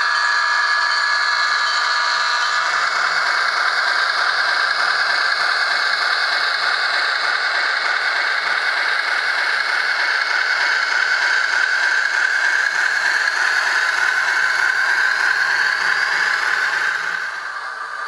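Sound decoder of an HO-scale Bachmann ALCO S4 model locomotive playing its ALCO 539T diesel engine sound through the model's small speaker: a steady, rattly running sound. It drops off near the end.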